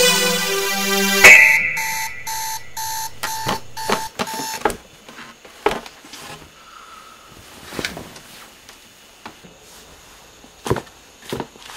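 Music cuts off with a click just over a second in, and a digital alarm clock starts beeping, short beeps about three a second, for about three seconds. Scattered knocks and rustles follow as a hand moves about on the bedside table.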